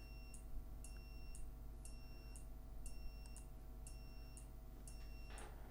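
A 5 V relay module clicking on and off about once a second in an Arduino alarm circuit, switching a buzzer that gives a faint high-pitched beep of about half a second between each pair of clicks. A brief rustle near the end.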